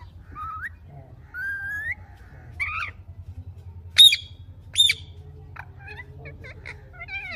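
Indian ringneck parakeet calling: two rising whistles, then a squawk, then two loud shrill screeches about four seconds in, followed by quick short chattering calls.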